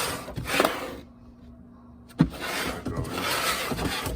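Handling of a plastic tool case and its packaging: rubbing and rustling, a short pause, then a sharp click a little over two seconds in and a longer stretch of rustling.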